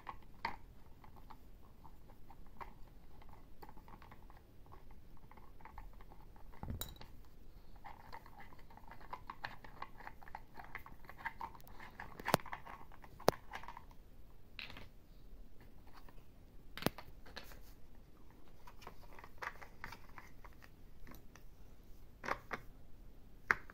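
Plastic toy construction-kit parts and a plastic toy screwdriver being handled: scattered clicks and knocks, with a stretch of scratchy scraping and rattling in the middle and a few sharp clicks in the second half.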